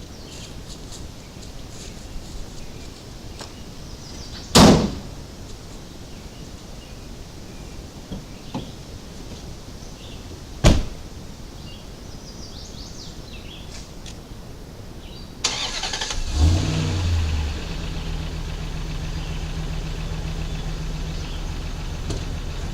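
Two loud, sharp thumps about six seconds apart, like vehicle doors shutting, then a vehicle engine starts about two-thirds of the way in and settles into a steady idle. Faint bird chirps are heard before the engine.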